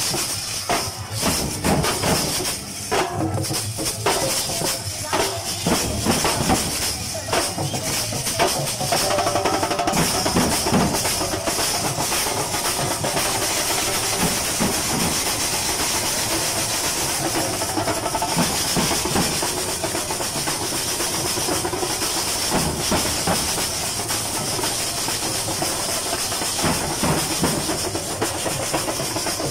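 Festival street percussion band playing: many drums and frame drums beaten together in a fast rhythm. The separate strokes are distinct at first, then blur into a dense, continuous din from about nine seconds in.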